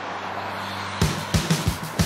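Jet noise from an Airbus A380 on low approach for about the first second, then background music with a steady drum beat starts.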